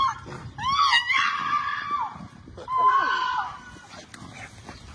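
A woman screaming in panic, two long high-pitched screams, in distress as a loose dog attacks her pet.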